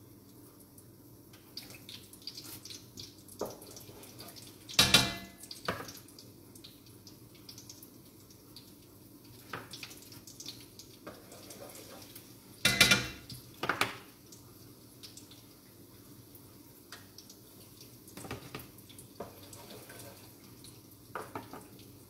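Rings of raised dough (cuddrurieddri) slipped into a pan of hot frying oil, each hitting the oil with a loud sizzle that dies away within about a second: once about five seconds in and again, twice in quick succession, around thirteen seconds in. Between them, faint handling of dough and the pan.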